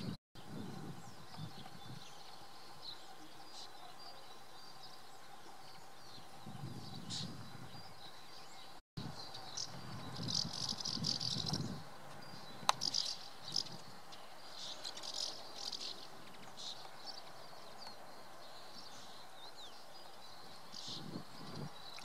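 Small birds chirping and twittering in short high calls over a faint steady outdoor background, busiest a little before halfway. A single sharp click sounds just past halfway, and the audio cuts out completely for an instant twice.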